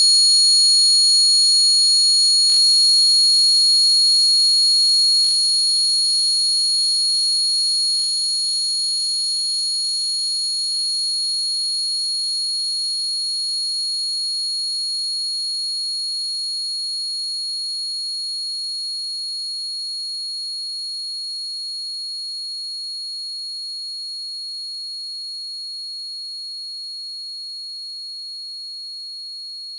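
Synthesized electronic tone effect: several high-pitched pure tones held together at steady pitch, slowly fading. Faint clicks about two and a half, five and eight seconds in, each where the sound steps quieter.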